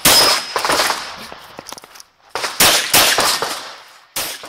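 9mm semi-automatic pistol firing shots in quick, uneven strings, each crack followed by a short echo: one right at the start, a cluster around two and a half to three seconds in, and a last shot near the end.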